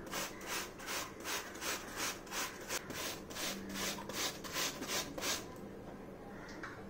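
Apple being grated on a stainless-steel box grater: rhythmic rasping strokes, about three a second, that stop a little after five seconds in.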